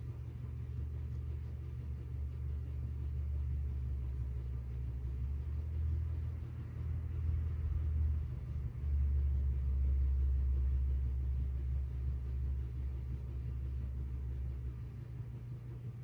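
A low, steady rumble that dips briefly about nine seconds in.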